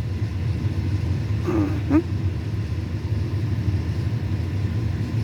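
Fire truck engine idling with a steady low rumble. A brief wavering voice sounds about a second and a half in.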